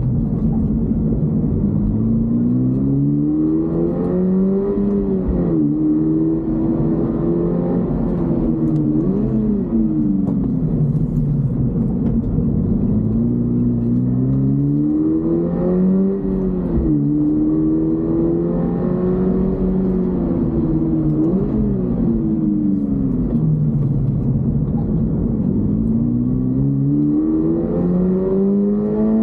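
Toyota GR86's 2.4-litre flat-four boxer engine under way, its revs climbing and dropping several times as it accelerates and changes gear. There are two quick sharp rev blips, about nine and twenty-one seconds in.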